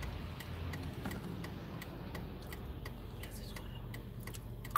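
Car indicator relay ticking steadily, about three ticks a second, heard inside the cabin over a low steady hum. One tick near the end is louder.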